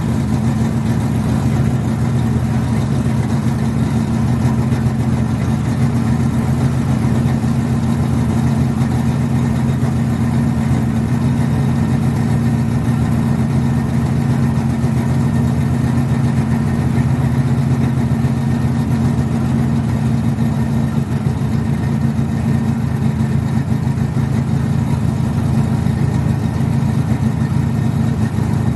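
A car engine idling steadily through its exhaust, a low, even note with no revving.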